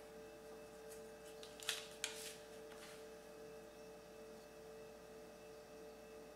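Plastic ruler set down on folded cardstock on a cutting mat: two short light taps with a brief paper rustle about two seconds in, over a faint steady hum.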